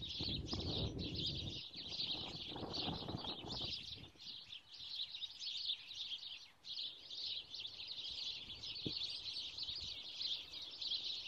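A flock of sparrows chirping continuously, many calls overlapping. Gusts of wind rumble on the microphone during the first few seconds.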